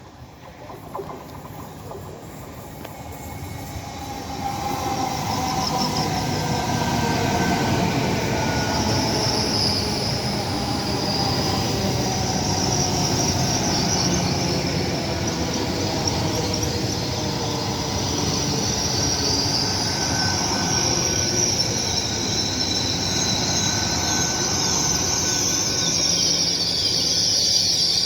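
Train running along a station platform, its wheels squealing high on the rails over a steady rumble. The sound builds over the first few seconds and then holds, with a lower tone sliding slowly down.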